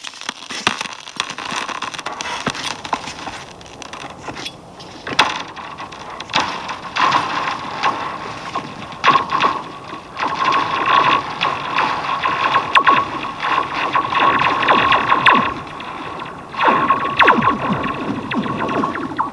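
Thin pond ice about 1¼ inch thick ringing and zinging: sharp pings and cracks with falling, whistling tones and a steady high ring beneath.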